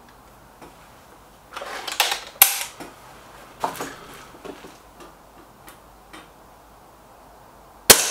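SMK XS36 air rifle being handled and readied, with a run of clicks and knocks over a couple of seconds, then a single sharp shot just before the end.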